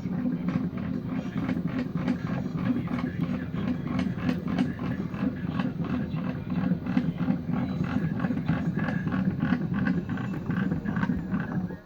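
Homemade table saw's motor running steadily, with fast, irregular clicking or rattling over the hum; it cuts off abruptly near the end.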